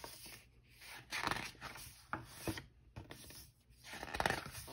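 Pages of a picture book being turned by hand: paper rustling and fingers sliding over the pages in several short rustles, the strongest about a second in and near the end.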